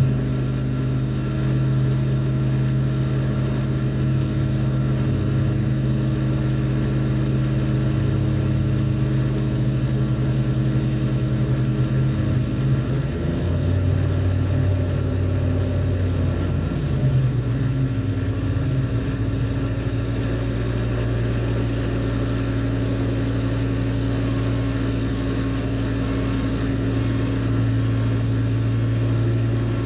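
Heavy machinery engine droning steadily, its pitch shifting and wavering for several seconds around the middle before settling again. Faint rapid high beeping comes in near the end.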